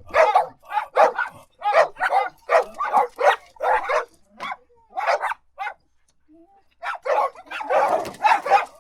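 A dog barking in quick runs of short barks, several a second. The barking stops for about a second past the middle, then picks up again, denser toward the end.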